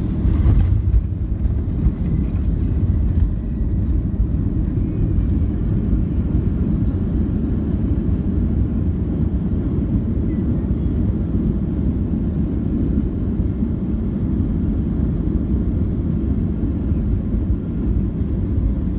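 Steady low rumble of a jet airliner's engines and wheels heard from inside the cabin during the landing rollout, with the wing spoilers deployed. It swells briefly louder about half a second in.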